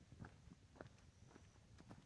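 Faint footsteps of a person walking at an even pace on a hiking trail, about two steps a second.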